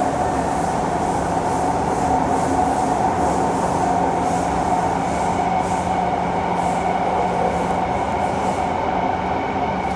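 Kawasaki C151 metro train heard from inside the carriage as it runs through a tunnel. There is a steady rumble of wheels on rail with a persistent high ringing tone, and faint clicks recur about once or twice a second.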